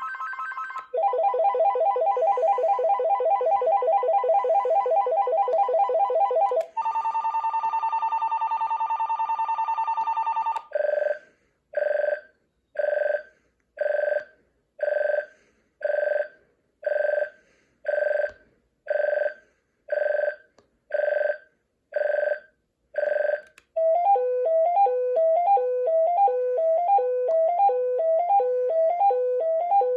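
Cordless phone handset playing its ringtones one after another: a fast electronic warbling trill, then a higher steadier trill, then a string of electronic beeps about one a second, and near the end a quick repeating electronic melody.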